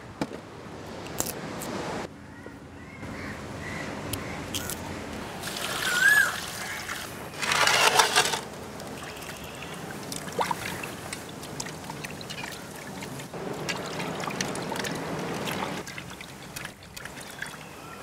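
Water sloshing and trickling as fish heads are washed by hand in a steel basin, with two louder splashes about six and eight seconds in.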